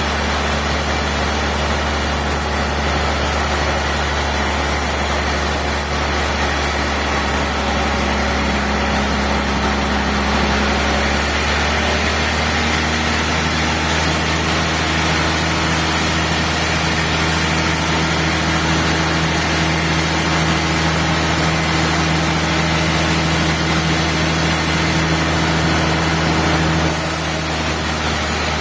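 Sawmill machinery running steadily with an engine-like hum. Its pitch shifts partway through and again near the end.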